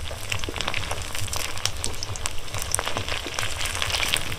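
Rice pakoras frying in hot oil in a kadai, the oil crackling and popping steadily.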